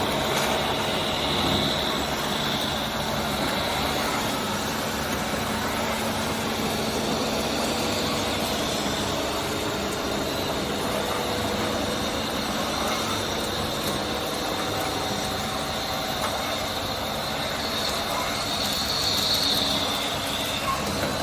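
Radio-controlled construction vehicles running: a steady engine-like drone with a high motor whine that swells briefly near the start and again near the end.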